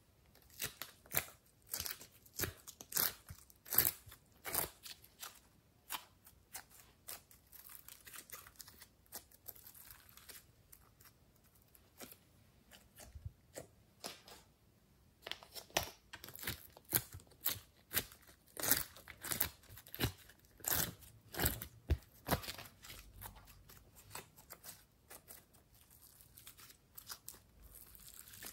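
Sticky slime worked by hand: a run of short wet clicks and crackling pops as it is pressed, pulled and stretched. The clicking is busiest over the first few seconds and again in a long stretch just past the middle, with sparser squishing between.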